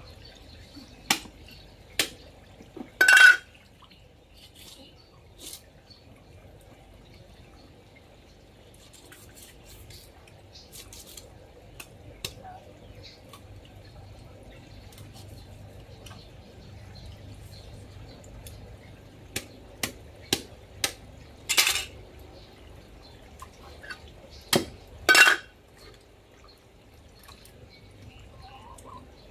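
Steel knives clinking and clattering against the cutting board and other tools as a large carp is cut up: scattered sharp metallic clinks, a few in the first seconds, a quick run of them about two-thirds of the way through and two more soon after, the loudest with a short ring. Hose water trickles across the concrete underneath.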